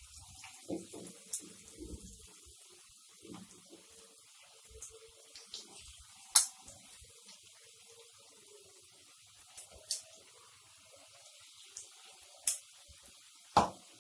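Vegetable pakoda batter deep-frying in hot oil as small lumps are dropped in by hand: a faint steady sizzle with a few sharp pops and spatters every few seconds.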